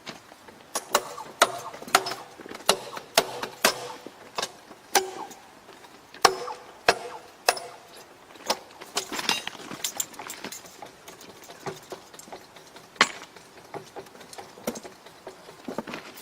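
Irregular sharp metallic clinks and knocks, at times a few a second, from hand tools striking steel during thermite rail welding work.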